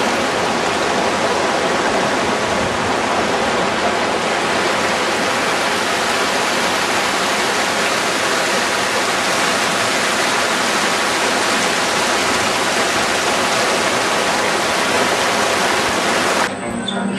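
Mountain stream cascading over boulders: a loud, steady rush of water close to the microphone, cutting off abruptly near the end.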